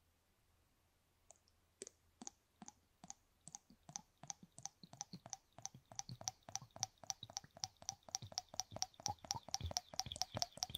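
Plastic syringe working at the canal of a silicone ear microphone while dispensing liquid anaesthetic. It makes a run of small wet clicks that start slowly, quicken to about five a second, and stop suddenly near the end.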